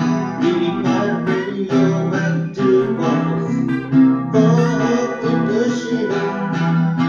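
Instrumental passage of a song led by guitar, with steady rhythmic chords and no singing.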